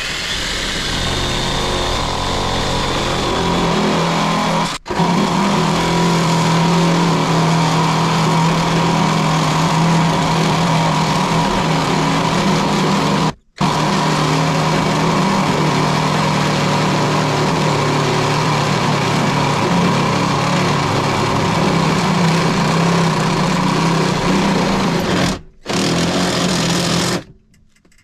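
Cordless drill boring a hole through an aluminum dash panel, its motor running steadily under load as the bit cuts the metal. It stops briefly three times and shuts off shortly before the end.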